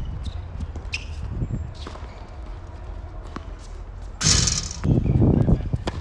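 Tennis ball struck by rackets and bouncing on a hard court, a few sharp scattered pops, over a steady low rumble. A loud half-second rush of noise about four seconds in.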